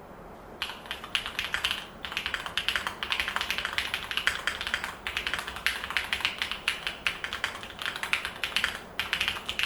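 Fast typing on a Luminkey80 mechanical keyboard: a dense run of keystroke clicks that starts about half a second in, with short pauses near two, five and nine seconds.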